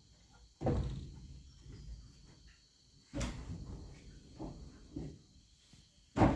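Three heavy thuds on timber a few seconds apart, each ringing on briefly, with two lighter knocks between the second and third.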